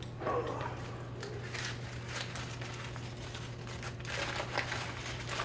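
Crumpled paper ball being unfolded and smoothed out by hand: irregular paper crinkling that gets busier near the end, over a steady low hum.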